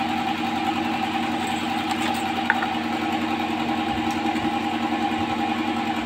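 Steady hum of running machinery made of several fixed tones, with a faint click about two and a half seconds in.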